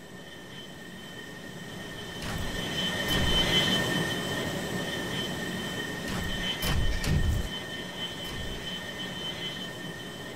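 Sci-fi flying-robot thruster sound effect: a steady high-pitched whine over a rushing hiss that swells twice, with a few sharp clicks.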